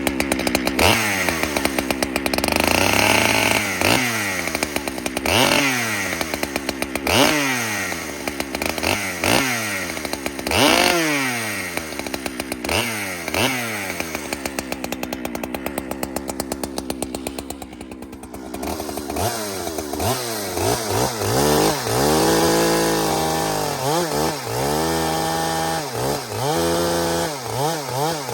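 New Husqvarna 395 XP two-stroke chainsaw being blipped: the engine rises in short revs that fall back every second or two, drops toward idle about two-thirds of the way in, then is feathered up and down in quicker, smaller revs. It is being run short of full throttle to break the new engine in.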